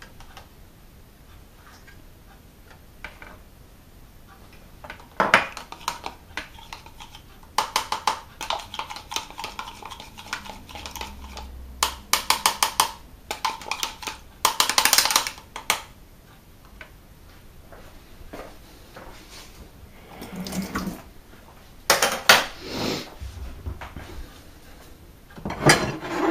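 Plastic and glass kitchen items (medicine bottles, a sippy bottle, a pink plastic cup and lid) handled and set down on a worktop: scattered clatters and knocks, with quick runs of clicks, between quiet gaps. Near the end a cupboard is opened, with a knock.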